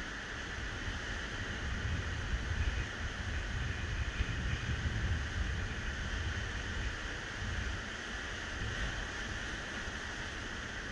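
Wind buffeting the microphone in low, gusty rumbles, strongest through the middle, over the steady hiss of Baltic surf breaking along the beach.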